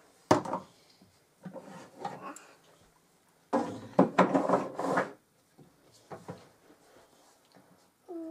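Knocks and rubbing of wood against wood from a wooden toy kitchen oven as things are pushed in and handled. There is a sharp knock just after the start, then a louder stretch of scraping about halfway through.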